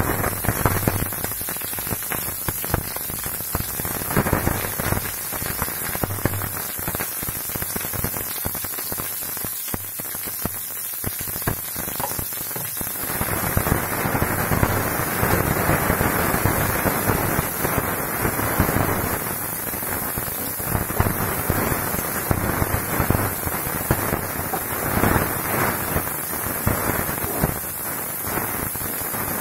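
Sliced onions, green chillies and curry leaves sizzling and crackling in hot oil in a frying pan. The sizzle is steady and grows louder and denser about halfway through.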